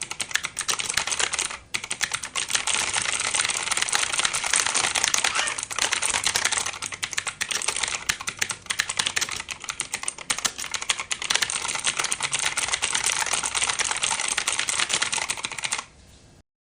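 Fast, continuous typing on an Armaggeddon MKA-3C mechanical keyboard: a dense stream of key clicks with a brief pause just under two seconds in. The typing stops abruptly shortly before the end.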